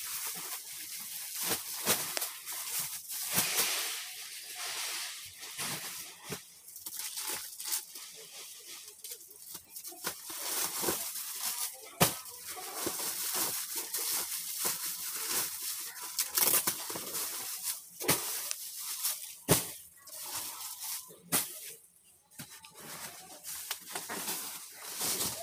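Plastic sacking and wrapping on bales of clothing crinkling and rustling as they are pulled about and handled, in irregular bursts with sharp crackles.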